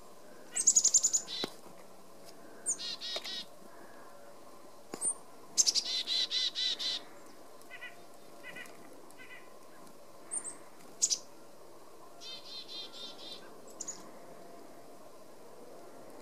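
Chickadees calling: several bouts of chick-a-dee calls, each a few high, thin notes followed by a quick run of harsh repeated dee notes, with quieter short notes in between.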